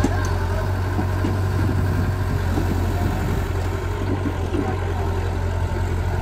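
CAT E70B hydraulic excavator's diesel engine running with a steady low drone while the machine swings and dumps its bucket of soil.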